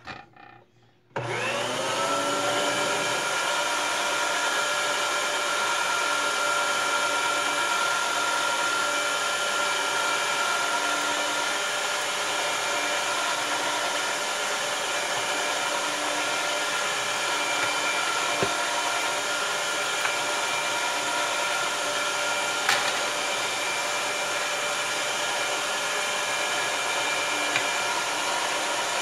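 Electric meat grinder switching on about a second in. Its motor spins up briefly, then runs at a steady pitch with a hum while sausage meat is pushed through the stuffing tube into casing. A couple of faint clicks are heard along the way.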